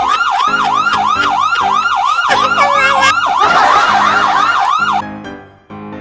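Electronic police-style siren in fast yelp mode, its pitch sweeping up and down about three times a second, cutting off suddenly about five seconds in: a fake police siren played as a prank. Piano music comes in after it.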